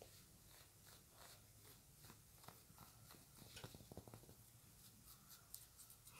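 Faint scratching and ticking of fingers and long fingernails working through hair and over a cloth headband: a quick, irregular crackle of small clicks that gets busier in the second half.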